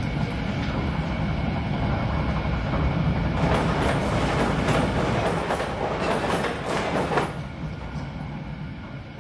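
Tannery machinery running: a steady low rumble with rattling and clattering that grows busier in the middle and fades near the end.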